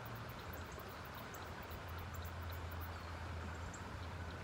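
Steady rush of a shallow river flowing past, with a low rumble underneath and scattered faint high-pitched ticks.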